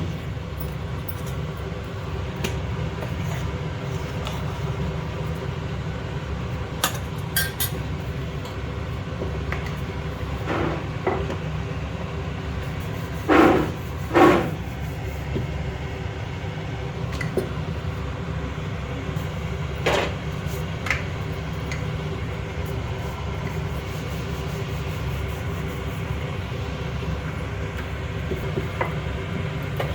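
Steady low rumble under scattered clicks and clinks of kitchen utensils, with two louder clinks about halfway through.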